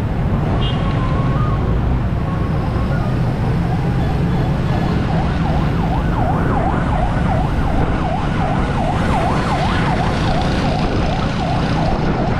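Ambulance siren in a fast, repeating rise-and-fall yelp, coming up from behind and getting clearer from about four seconds in, over the steady low rumble of vehicle traffic.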